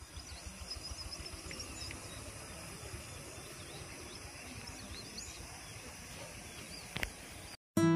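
Rural outdoor ambience: faint, scattered chirps of small birds over a low rumbling background noise, with one sharp click about seven seconds in.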